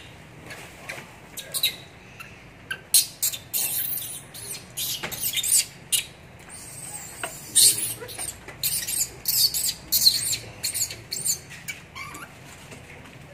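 Baby macaque squealing: rapid runs of short, very high-pitched squeaks, some sliding in pitch, densest through the middle of the stretch.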